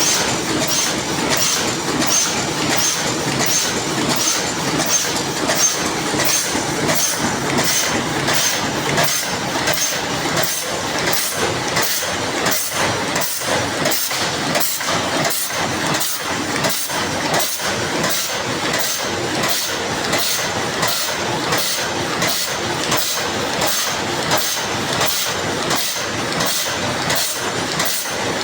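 Paper cup forming machine running steadily, its mechanism clacking in a fast, even rhythm over a continuous mechanical clatter.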